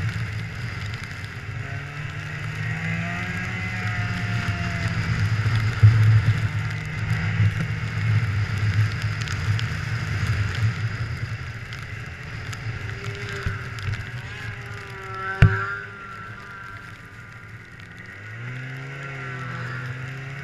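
Snowmobile engine running under way, its pitch rising and falling with the throttle over a steady hiss. A single sharp knock about fifteen seconds in.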